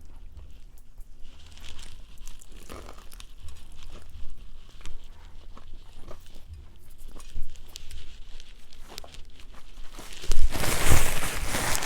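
Close-up eating sounds: scattered crunches and smacks of chewing fried chicken, with a louder noisy crunching burst about ten seconds in.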